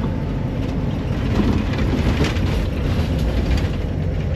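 Motorhome driving slowly over a rough, potholed gravel road: a steady low rumble of engine and tyres, with scattered clicks and rattles as the body shakes.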